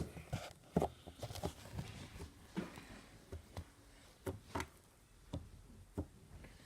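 Clay butter slime made with Model Magic being squished and stretched by hand, giving scattered small clicks and pops at an uneven pace.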